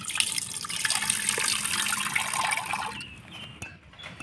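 A knife blow cracks a coconut shell with a single knock, then the coconut water pours and splashes out of the split nut into a metal pot for about three seconds before tapering off.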